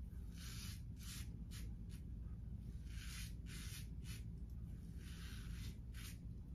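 Henson safety razor with a Feather blade scraping through lathered beard stubble in a run of short, repeated strokes, faint.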